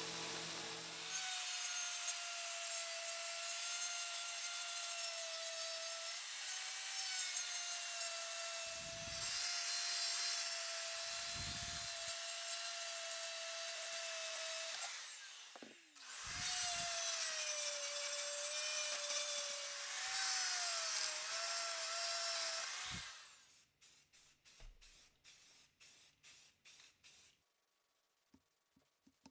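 Handheld rotary grinder with a carbide burr grinding a cast floor-jack frame piece held in a vise: a steady high whine whose pitch sags a little as the burr bites, with a brief break about halfway. Near the end the grinding stops and a few seconds of quick light clicks follow.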